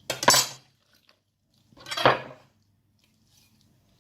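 Two loud knife chops through a raw whole chicken, the blade striking the cutting board, one right at the start and one about two seconds in.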